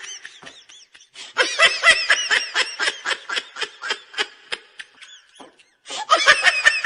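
A person laughing hard in rapid bursts of about five pulses a second, breaking off about five seconds in, then laughing again near the end.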